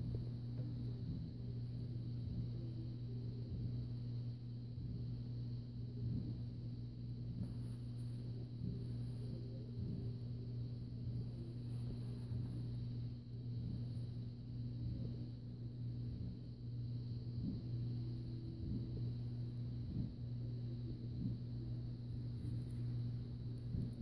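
Steady low hum on two even tones, with faint scattered clicks and knocks from handling the camera.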